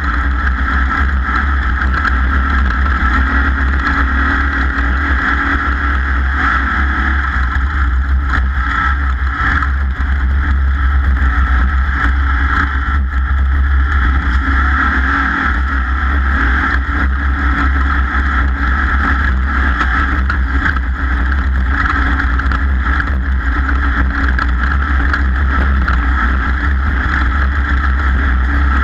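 Racing motorboat's engine running steadily under way, a loud unbroken drone.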